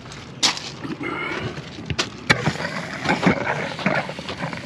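Handling noises as a garden hose with a metal fitting is brought to an RV's fresh-water fill inlet: a few sharp clicks and knocks, a short quick rattle about a second in, and scraping.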